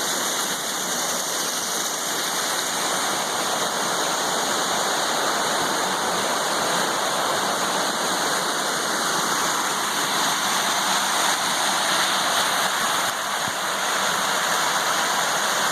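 Creek water flowing, a steady rushing noise with no break.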